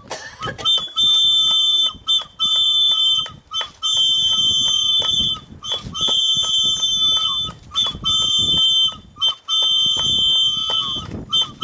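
Shrill whistles blown in repeated blasts of about a second each, two steady pitches sounding together, with hand claps in between.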